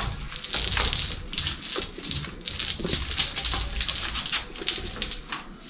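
Paint roller rolling wet putty onto a fiberglass-covered wall, a sticky, hissing rolling noise in repeated strokes. It is the second coat being laid on wet over a first coat that has stopped being tacky.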